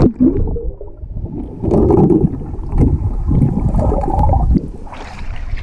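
Muffled underwater sound of swimming-pool water picked up by a submerged camera: low gurgling and sloshing as a swimmer moves near the pool bottom. About five seconds in, the sound opens out and brightens as the camera comes up out of the water.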